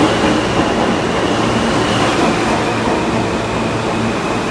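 New York City subway J train running past the platform at close range: a steady rumble and rattle of the cars, with a faint high whine throughout.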